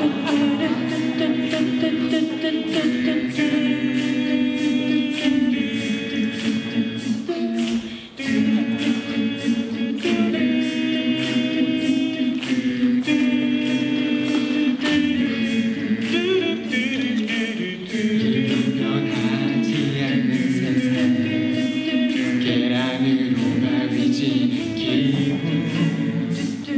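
Mixed student choir singing a cappella in sustained chords over a steady clicking beat about twice a second. The singing breaks off briefly about eight seconds in.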